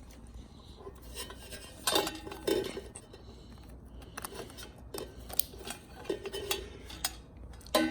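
Wiring harness and plastic electrical connectors being handled and plugged together, giving scattered sharp clicks and light clattering.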